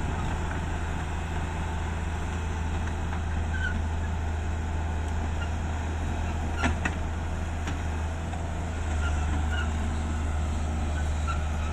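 Heavy truck's diesel engine running steadily, a low even drone, with a brief click about seven seconds in and the drone getting a little louder about nine seconds in.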